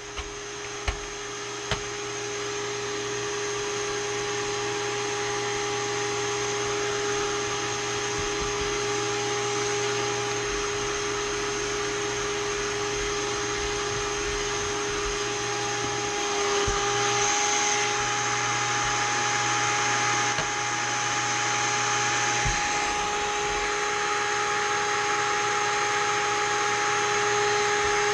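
A steady machine drone with a constant pitched hum, like a small electric motor running, growing slightly louder about two thirds of the way through. A couple of sharp knocks from handling tools come in the first two seconds.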